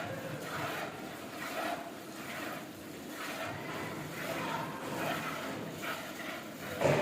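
Milk squirting into a pail as a Gir cow is milked by hand: repeated short hissing squirts, a little under two a second.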